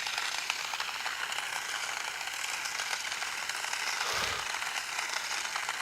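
Toy remote-control stunt car's small electric drive motors and plastic gears whirring steadily as it spins in circles, with a light ticking rattle throughout.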